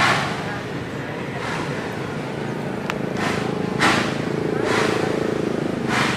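Narrow-gauge sugar-mill steam locomotive working slowly, its exhaust chuffing about once a second with uneven beats. A faint steady tone sounds in the middle.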